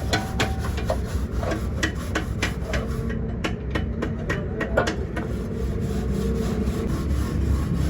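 Hand scraping and rubbing on radiator parts, with irregular sharp ticks of tool contact over a steady low rumble.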